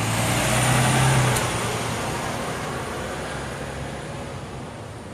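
Double-decker bus passing close by and driving off: a low engine drone with tyre and road noise, loudest about a second in, then fading as it pulls away.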